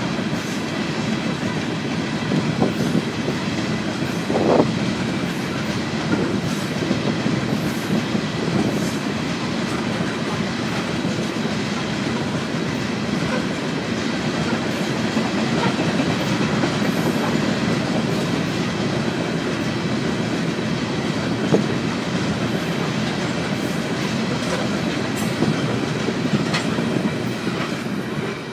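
CSX coal train's hopper cars rolling past: a steady rumble and clatter of steel wheels over the rails. The sound falls away near the end as the last car goes by.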